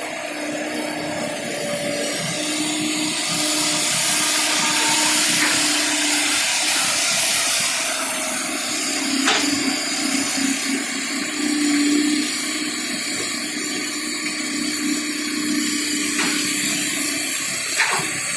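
Hydraulic excavators working, their diesel engines and hydraulics running steadily with a held hum, and a few sharp knocks near the end.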